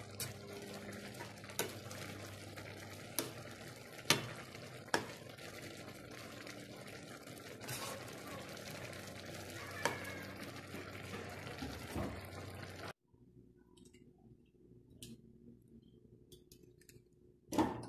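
Metal ladle stirring a thick mung bean stew in a pan, with sharp clinks against the pan now and then over a steady hiss from the cooking pot. About thirteen seconds in the sound drops off sharply to a much quieter room with faint ticks.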